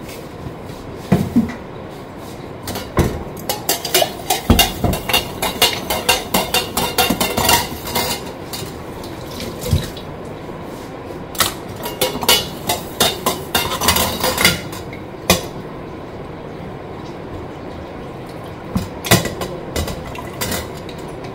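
Kitchen utensils and containers clinking and knocking while a drink is prepared: clusters of quick sharp taps and clicks, several a second, about three seconds in, again near the middle, and briefly near the end.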